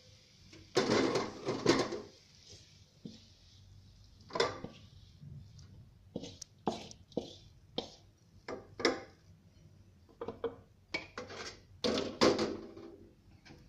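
Wooden spatula scraping and knocking against a metal wok as stir-fried papaya is tipped out into a serving bowl. A series of irregular scrapes and clatters, loudest about a second in and again near the end.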